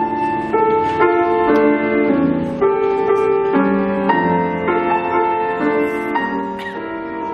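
Instrumental music led by piano, with chords changing about every half second.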